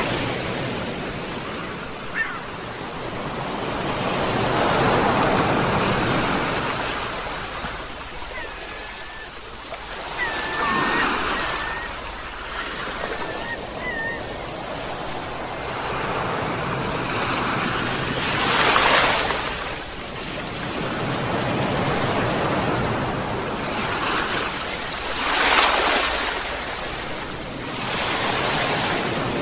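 Sea waves washing onto a shore, surging and ebbing every several seconds, with a few short seagull cries in the middle.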